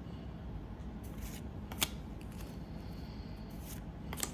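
Trading cards handled by hand as a pack is gone through, the cards sliding against each other: soft rustles and a few crisp clicks, over a steady low hum.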